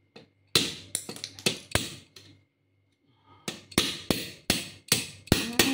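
An adjustable wrench used as a hammer, striking the end of a black steel square-tube pot-rack leg to knock home a tight-fitting part that would not press in by hand: a run of about five sharp knocks, a pause of about a second, then about six more.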